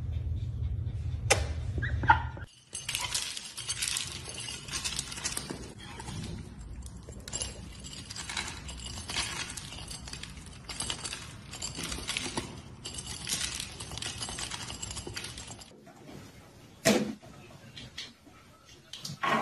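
A duck and a cat eating dry kibble from a ceramic dish: a dense clatter of crunching and pellets clicking against the dish, starting after a couple of seconds and stopping abruptly near the end, followed by one short, louder sound.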